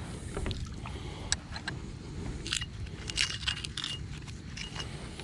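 Brute 2100 lb single-sided fishing magnet being handled just out of the water: scattered metallic clicks, clinks and scrapes from the magnet, its carabiner and the rusty debris clinging to its face. The clicks cluster in the middle, with a brief metallic ring, over a low rumble.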